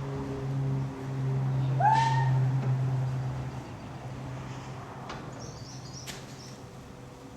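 A cat meows once, a short call that rises and falls about two seconds in, over a steady low hum.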